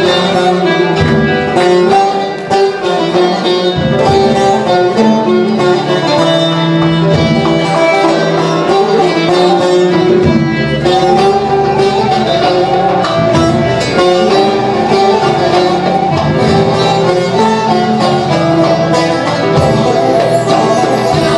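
Turkish folk instrumental on bağlamas (long-necked saz lutes) and guitar, playing a quick plucked melody as the introduction to a türkü, before the choir sings.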